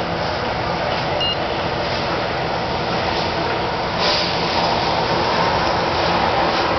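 Steady rumble and hiss of a moving train, heard from inside the carriage.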